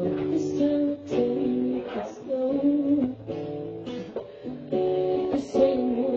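Acoustic guitar strumming chords, the chord changing every second or so.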